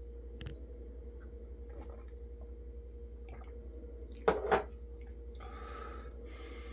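A man drinking a shot of whisky and then chewing a bite of food, with faint wet mouth sounds and a couple of short loud sounds about four seconds in. A steady low hum runs underneath.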